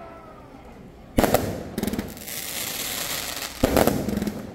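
Two aerial firework shells bursting overhead, one about a second in and another about two and a half seconds later. Each sudden bang is followed by a fading crackle and hiss.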